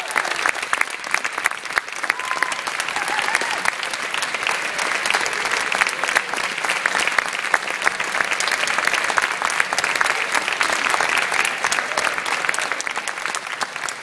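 Large audience applauding, many hands clapping in a dense, steady patter.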